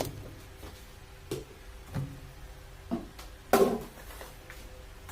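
Handling noise at a top-load washing machine: a few light clicks and knocks, with one louder clatter about three and a half seconds in.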